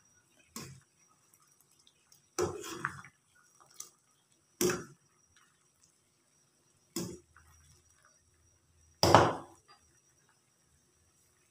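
A steel ladle knocking and clinking against a metal saucepan while agar agar is stirred in water, about six separate knocks with the loudest near the end.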